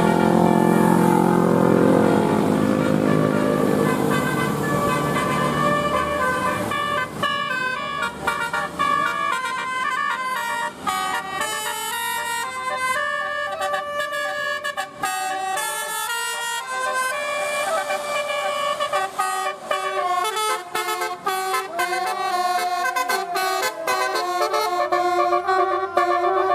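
Bus engine running for the first few seconds, then a multi-tone "telolet" bus horn playing a rapid melody of stepped notes until the end.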